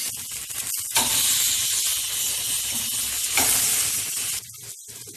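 Jerk-marinated skirt steaks sizzling on a hot grill grate, a steady hiss that drops away sharply about four and a half seconds in.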